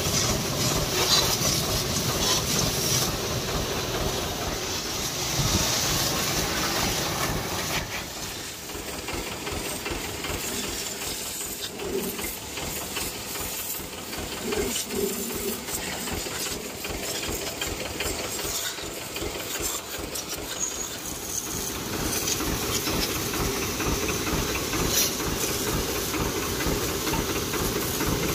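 Pressure-washer jet hissing steadily as it sprays water onto a tractor's engine bay and tyre. It goes softer through the middle stretch and builds again near the end.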